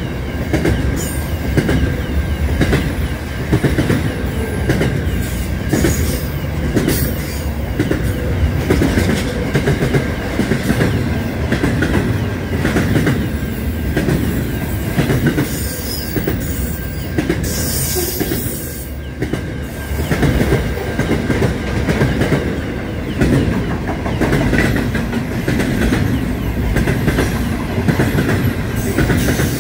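Container freight train's wagons passing close at speed: a steady rumble with the rhythmic clatter of wheels over rail joints, and a thin, steady wheel squeal above it.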